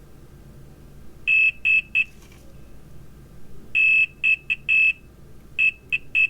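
Multimeter continuity beeper giving a steady high beep that starts and stops in three clusters of short beeps, as the probes touch pads on the iPhone X camera connector; each beep signals the pad is making connection.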